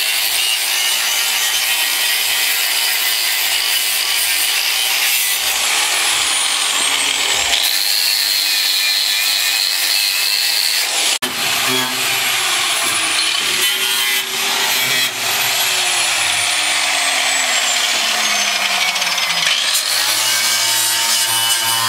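Angle grinder running continuously on sheet steel, first cutting a narrow steel strip, its whine dipping and recovering as the disc bites. About halfway through a cut brings the grinder onto the car's floor-pan metal, grinding on steadily.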